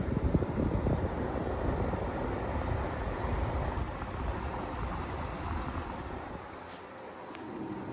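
Vornado EVAP-40 evaporative humidifier's fan running on high speed: a steady rush of air, a bit noisy, like a typical noise machine. It rumbles unevenly in the first second or so and eases slightly near the end.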